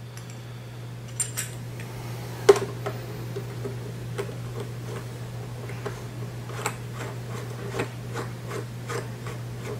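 Brass fitting being screwed by hand onto the plastic threads of a water softener bypass valve: scattered light ticks and clicks of metal on plastic, one sharper click about two and a half seconds in, over a steady low hum.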